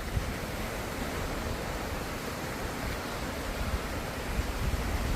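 Ocean surf washing steadily, an even rush of water noise with an uneven low rumble underneath.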